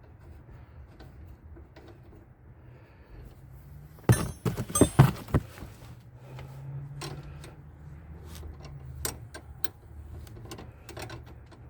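Wrench and hand tools clinking against metal: a quick flurry of sharp metallic clanks and rattles about four seconds in, then scattered lighter clicks as the wrench works a fastener.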